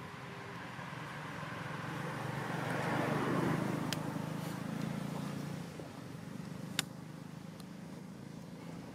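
A vehicle passing by, its noise swelling to a peak about three seconds in and fading away by about six seconds, with two sharp clicks.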